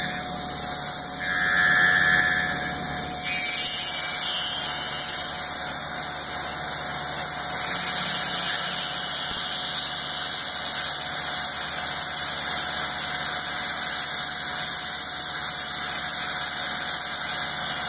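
CNC vertical milling machine cutting a polycarbonate rod: the spindle and cutter run steadily, with a strong high hiss over the machining noise.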